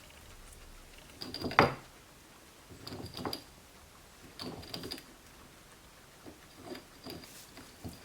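Guinea pigs rustling and munching hay, in short bursts of rustling and clicks about every second and a half.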